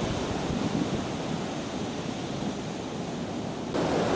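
Steady rushing noise of wind on the microphone mixed with ocean surf, with no distinct events. It gets louder and fuller near the end.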